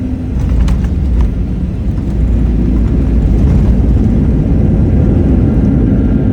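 Boeing jet airliner landing: a loud, steady low rumble that grows louder about two seconds in, with a few faint clicks about a second in.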